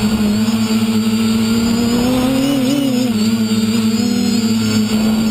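Electric motors and propellers of an RC aircraft heard from the camera it carries: a loud, steady hum with a thin high whine above it. The pitch rises and wobbles briefly about halfway through as the throttle changes.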